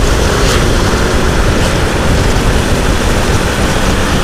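Motorcycles running at cruising speed, a steady engine drone under heavy wind rushing over the microphone, with a few brief swells.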